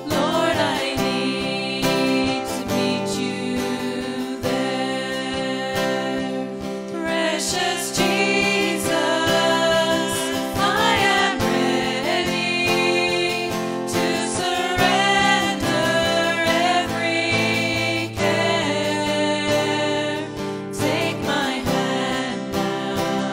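A worship song: singing over a steadily strummed acoustic guitar.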